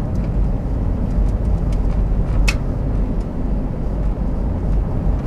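Strong wind buffeting the microphone near a tornado, a loud, uneven low rumble, with a few faint clicks and one sharper click about halfway through.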